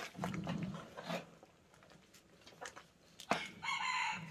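A rooster crowing briefly near the end, the loudest sound, with chickens clucking; before it, a few sharp knocks of a wooden stick stirring a large pot of boiling feed.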